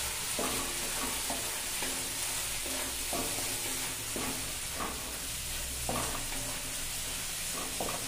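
Wooden spatula stirring and scraping vegetables frying in a steel kadhai, with repeated scrapes over a steady sizzle.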